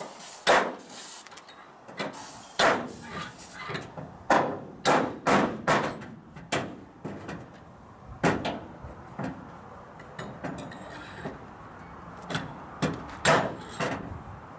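Hammer blows on metal, a dozen or so irregular sharp strikes, with quick runs of three or four blows about half a second apart around five seconds in and again near the end.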